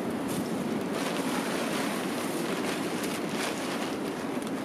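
Plastic tarp rustling and crinkling steadily as it is pulled and draped over a rope ridge line, with a few faint crackles.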